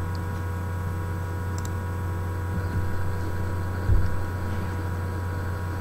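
Steady electrical hum with a row of even, unchanging tones, and one short low thump about four seconds in.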